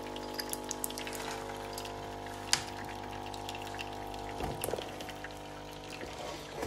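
Melitta CI Touch bean-to-cup coffee machine brewing: its pump hums steadily while coffee streams from the two spouts into the drip tray, with a single sharp click about two and a half seconds in.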